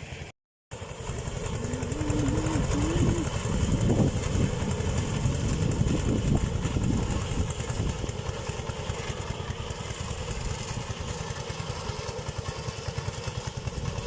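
Small engine driving a rice thresher, running steadily with a fast low pulsing. It cuts out briefly just after the start, then runs louder and harsher from about two to seven seconds in before settling back.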